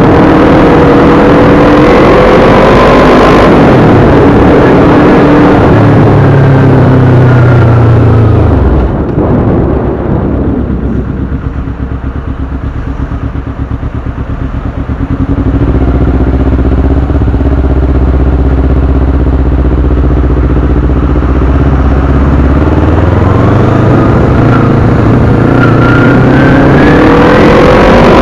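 Motorcycle engine accelerating through the gears, its pitch rising and dropping with each shift. About nine seconds in it eases off to a quieter, low steady run for several seconds as the bike slows in traffic. It then picks up and accelerates again near the end, with heavy wind rush on the microphone while moving.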